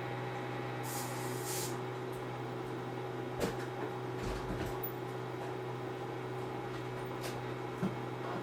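Samsung washing machine running its cotton cycle: a steady low hum, with a light knock about three and a half seconds in and another near the end.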